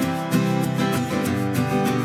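Background music led by acoustic guitar, with a steady beat.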